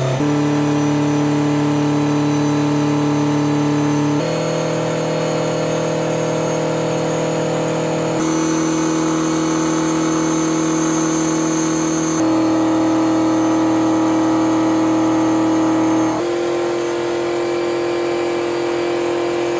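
Ferrari 308 GTS's carburetted 2.9-litre V8 running under load on a hub dyno. It holds one steady speed for about four seconds, then jumps to the next dyno setpoint, stepping between about 4000 and 5200 rpm.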